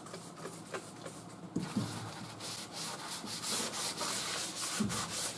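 A cloth rag rubbed over a car's painted sheet-metal inner fender, wiping it down with wax and grease remover before sanding. The quick rubbing strokes start about one and a half seconds in.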